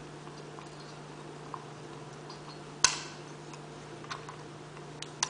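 Vintage Penguin 105D spinning reel being handled and cranked: faint light ticking from its mechanism, with one loud sharp metallic click about three seconds in and another short click near the end.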